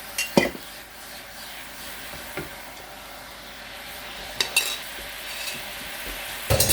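Sugar syrup and chili paste sauce sizzling in a pan while a utensil stirs it, knocking against the pan four times, the loudest knock near the end.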